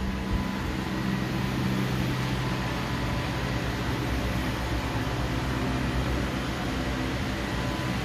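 Robot vacuum cleaner running across a hard tile floor: a steady whir of its suction fan and brushes, with a low hum and a faint high tone.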